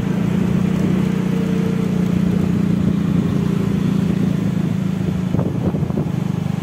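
A motor vehicle engine running steadily, a low, even hum over road noise.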